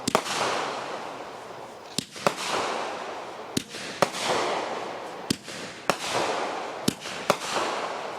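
Fireworks bursting overhead: about ten sharp bangs at uneven intervals, each trailing off in a hiss that fades over a second or so.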